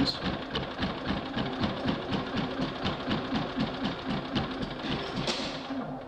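Champion 3100 inverter generator's single-cylinder four-stroke engine running rough with uneven, stumbling firing pulses and barely keeping going, then fading out as it stalls near the end. Choking it makes no difference; the fault is traced to its electronic control unit, which drives the carburettor's stepper motor.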